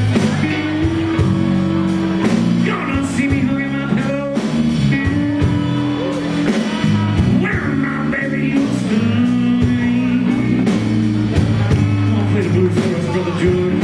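Live blues band playing: electric guitars, drum kit and saxophone, with a bending lead line over a steady bass line.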